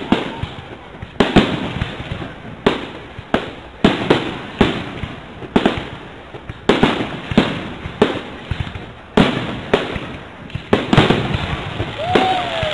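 Aerial fireworks shells bursting overhead: a long series of sharp bangs, about one or two a second, each trailing off into crackle and echo before the next.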